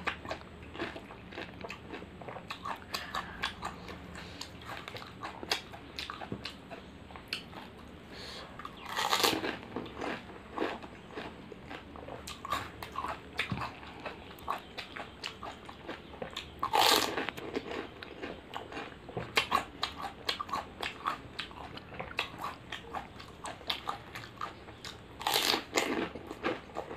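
Close-up chewing and crunching of pani puri, crisp fried puri shells filled with spiced water, with many small crunches throughout. Three louder bursts come roughly eight seconds apart as whole filled puris are bitten into.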